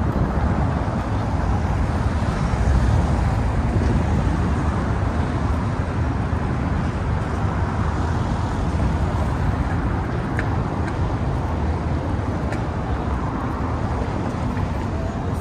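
Steady city road-traffic noise with a low rumble, with two faint ticks in the second half.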